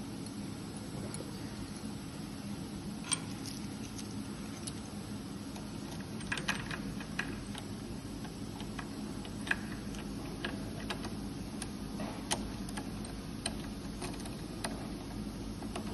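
Light clicks and taps of small metal machine parts being handled and fitted back by hand: a fitting and washer going onto a mascara filling machine, over a steady low hum. The clicks are scattered, with a cluster about six seconds in and more through the second half.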